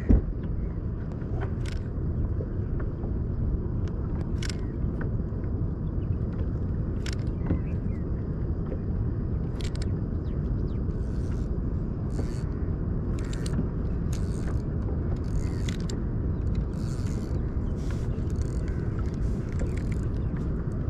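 Steady low rumble of wind on the microphone, with scattered short clicks and brief hissy patches.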